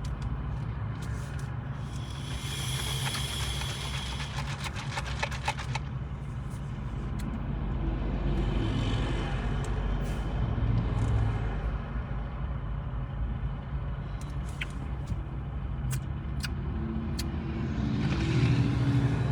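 A car driving, heard from inside the cabin: a steady low road and engine rumble, with some rustling and clicking about two to six seconds in.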